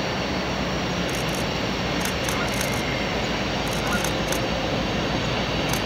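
Diesel locomotives of an approaching CSX welded rail train, heard from a distance as a steady, even rumble.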